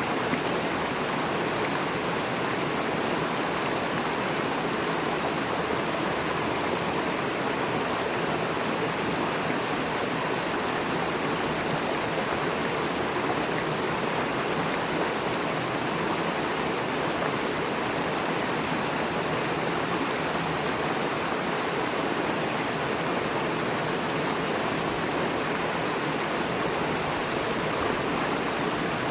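A river flowing fast over and between rocks, a steady rushing of water.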